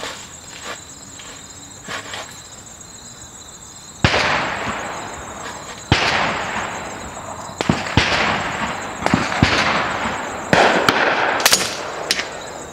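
A run of about six sharp shots, starting about four seconds in, each trailing off over a second or so in an echoing outdoor range; among them is a .25 caliber PCP air rifle firing a 38-grain slug.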